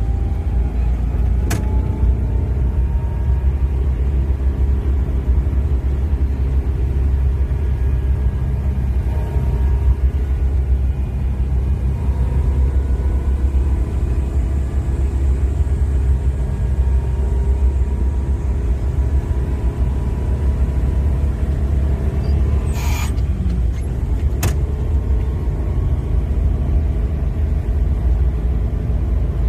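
Steady low rumble with faint drifting tones above it, and a few short clicks at about one and a half seconds, twenty-three seconds and twenty-four seconds in.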